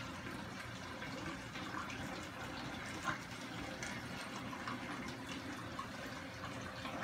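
Steady sound of water running through an aquarium's overflow drains into the sump. The owner finds the corner 1.5-inch overflow very loud and plans to rebuild its weir to quiet it.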